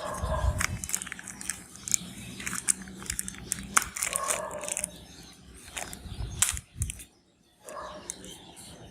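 Meat grinder working colourful jelly through, a wet squishing with many irregular crackles and pops over a low steady hum. It breaks off briefly about seven seconds in.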